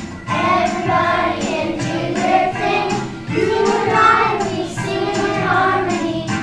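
A group of young children singing a Christmas song together over backing music.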